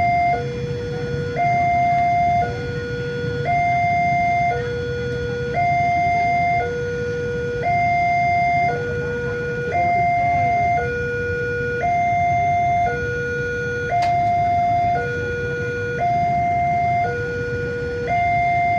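Railway level-crossing warning alarm sounding its two-tone signal, alternating a higher and a lower tone about once a second, the higher tone a little louder. It sounds while the crossing barrier is down, warning of an approaching train.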